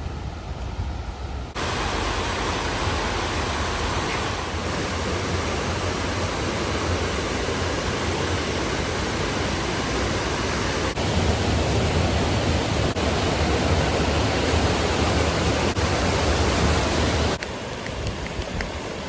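Rushing water, a steady hiss. It starts abruptly about a second and a half in, gets louder about eleven seconds in, and cuts off near the end.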